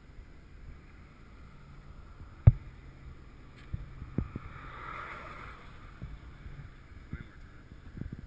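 Handling noise from a hand-held action camera at a concrete bridge railing: one sharp knock about two and a half seconds in and several softer taps, over a faint rush that swells and fades around the middle.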